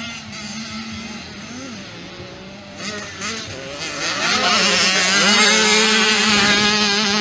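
Engines of several small youth motocross bikes revving up and down as they race over the jumps, growing much louder about four seconds in as bikes come close.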